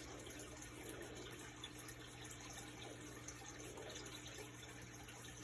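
Faint steady hiss with a low, constant hum: quiet room tone, with no distinct sound standing out.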